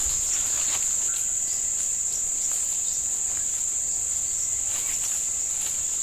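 A steady, high-pitched drone of insects in the forest, unbroken throughout, with faint footsteps crunching on dry leaf litter.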